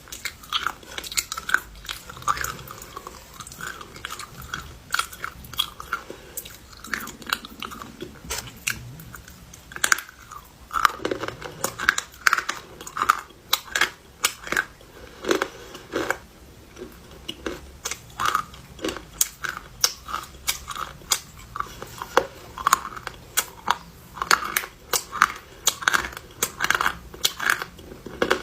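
A person biting and chewing clay: a dense, irregular run of sharp crunches and crackles.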